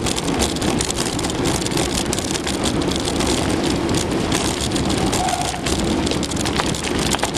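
Mountain bike ridden along a woodland trail: a steady rush of tyre and trail noise, with frequent small clicks and rattles from the bike.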